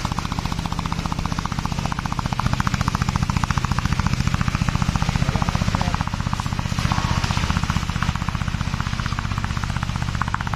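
Engine of a rubber-tracked brush mower running steadily at high speed, with a rapid, even pulsing.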